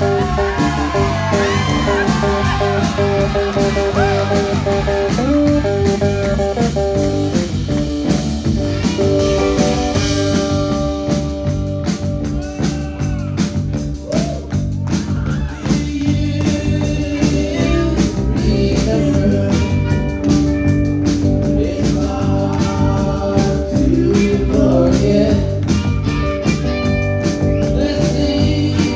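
Garage-rock band playing live on stage: electric guitars and a drum kit with singing over them.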